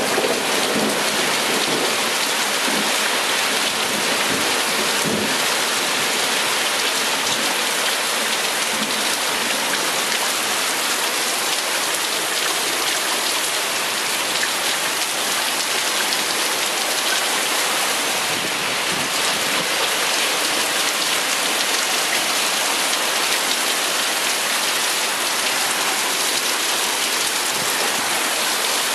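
Heavy thunderstorm rain pouring down and pelting the ground, a steady dense hiss.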